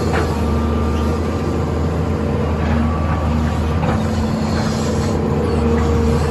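Sany 215 excavator's diesel engine running steadily under working load, with a few short clicks and knocks over it.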